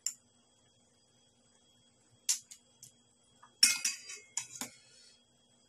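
Metal spoon clinking against dishes: a few light clicks, then a louder cluster of clinks about three and a half seconds in as the spoon goes into a stainless steel bowl.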